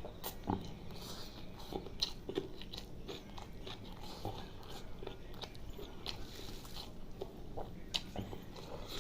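Close-miked eating sounds: a person chewing a mouthful of chicken liver curry with rice, with wet smacks and frequent short clicks from the mouth.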